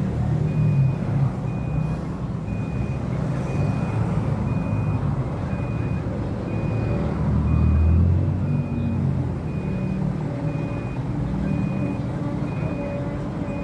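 A vehicle's reversing beeper sounding about twice a second over a steady low engine rumble. The rumble swells about eight seconds in.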